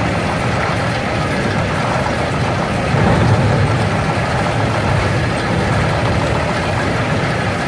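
Steady low rumble of heavy machinery, an idling diesel log truck and a log crane lifting a bundle of logs off it, a little louder about three seconds in.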